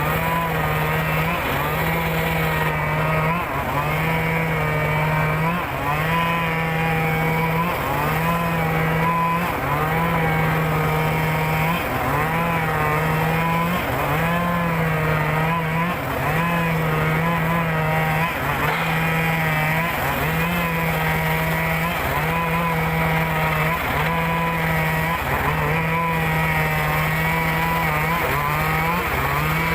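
Motor-driven circular saw ripping timber. It runs steadily under load, its pitch dipping briefly about every two seconds as the blade works through the wood.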